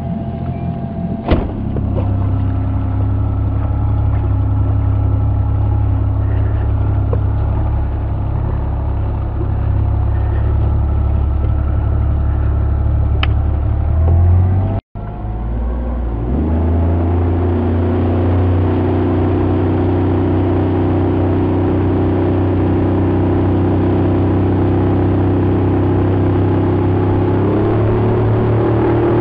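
Honda four-stroke outboard motor running the skiff at speed, a steady engine drone. It cuts out for an instant about halfway through, then climbs in pitch as it comes back up to speed, with a slight further rise near the end.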